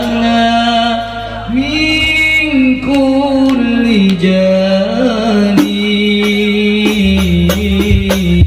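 A young man's high solo voice singing a long, ornamented sholawat melody into a microphone, holding and bending each note. About halfway through, hadrah frame drums start striking under the voice.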